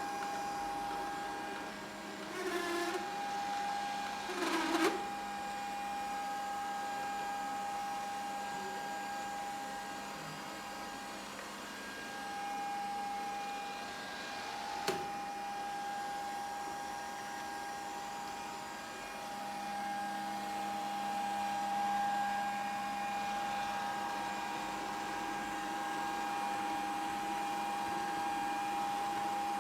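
Robot vacuum cleaner running with a steady whine and hum. A couple of short knocks come in the first five seconds, and a sharp click about halfway through.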